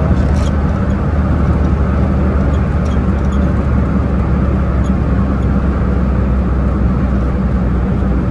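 Vehicle engine and road noise while driving at a steady cruising speed: an even low hum and rush of tyre and wind noise with no change in engine speed.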